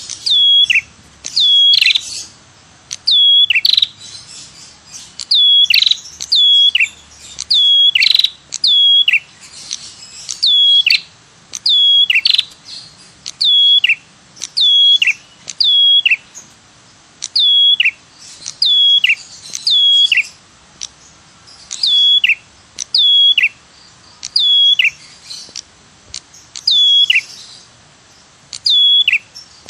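Prenjak kepala merah (a tailorbird) calling its 'tirr tiirr' lure call. Each call is short and high and drops steeply in pitch. Most come in quick pairs, repeated about once a second with brief gaps, as a recording played to lure the birds in.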